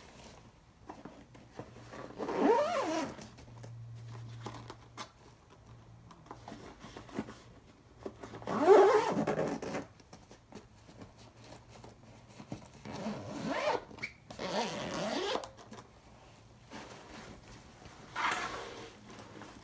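Zipper of an Alienware Vindicator 2.0 laptop backpack being pulled along its track in several separate runs, each with a quick sweep in pitch, the loudest about nine seconds in.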